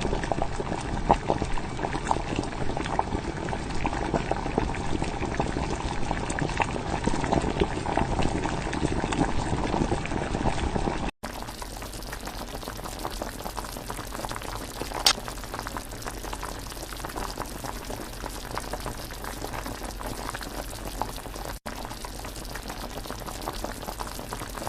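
Beef mince cooking in a karahi, bubbling and sizzling steadily with dense crackling. About halfway through the sound cuts to a quieter crackle, with one sharp click a few seconds later.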